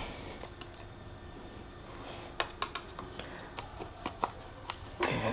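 Scattered small clicks and light knocks, with a couple of short rustles, from hands handling and fitting small parts.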